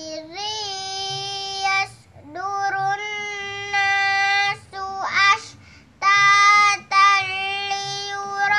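A young girl chanting Quran verses in a high, clear voice, holding long steady notes in several phrases with short pauses between them and a few quick melodic turns.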